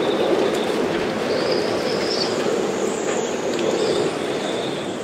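Storm wind blowing hard with rain across a sailboat's deck, a steady rush with a thin high whistle from the rigging coming and going over it. It starts to fade near the end.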